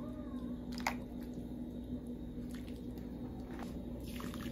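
Faint wet squishing of raw pork rib pieces being handled and moved into a clay pot, with a few soft clicks and taps, over a steady low hum.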